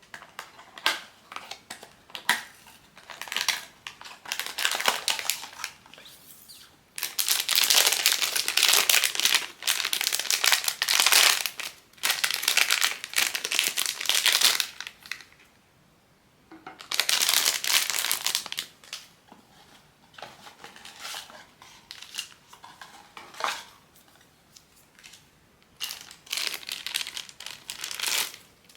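Crinkly plastic wrapping of a Pop Mart blind box being crumpled and torn open by hand. The rustling comes in bursts: scattered crackles at first, a long dense stretch of crinkling through the middle, then short crackles and one more burst near the end.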